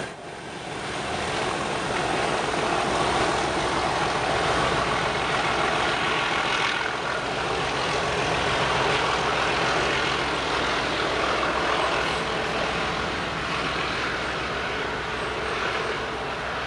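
A pair of English Electric Class 37 diesel locomotives working hard up a steep gradient, making a loud, rough racket. The noise builds over the first couple of seconds and eases slightly near the end. One of the pair, 37038, appears to be suffering from fuel starvation, which makes it cough and splutter.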